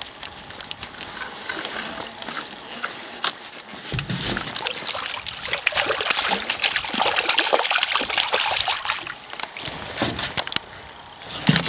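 Hooked Arctic grayling thrashing and splashing at the water's surface on the line, starting about four seconds in and dying down about ten seconds in.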